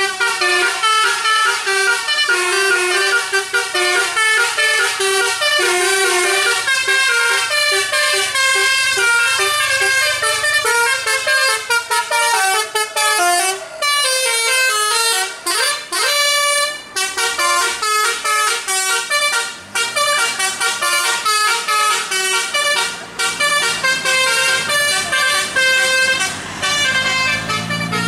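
Bus musical air horn ("telolet") playing a fast tune of short stepped notes, several a second, with a rising slide about halfway through.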